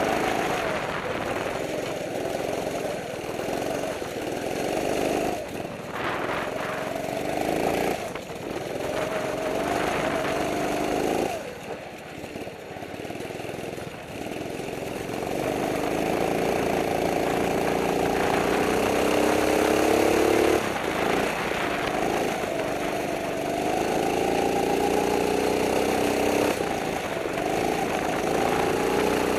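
Kart engine heard from onboard, revving up with a climbing pitch on the straights and dropping off sharply when the throttle lifts for corners, several times over.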